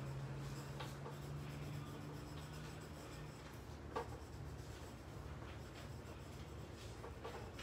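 A marker scratching over paper in short drawing strokes, with a light tap about four seconds in and a faint low steady hum beneath.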